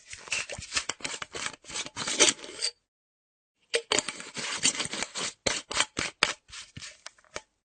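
Screw cap of a half-empty metal flask being twisted, metal rasping and ticking against the thread. It comes in two bursts of quick ticks and scraping, split by about a second of silence.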